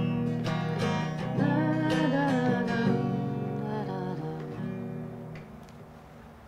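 Background music: acoustic guitar strumming with a singing voice, fading out over the last few seconds.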